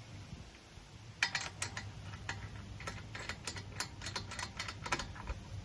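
An irregular run of sharp clicks and ticks in small clusters, from parts being fitted back into place, starting about a second in and stopping near the end, over a low steady hum.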